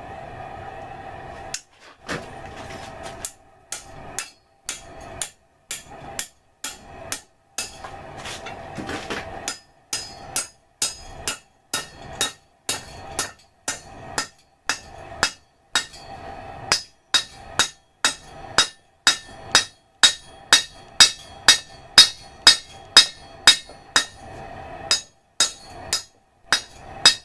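Hammer blows on a forge-heated bolt lying on an anvil, bending it over. The blows come steadily at about two a second and grow louder and more ringing in the second half. A steady hum fills the pauses.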